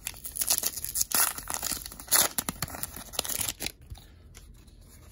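A foil trading-card pack wrapper being torn open and crinkled in the hands, crackling for about three and a half seconds, then quieter.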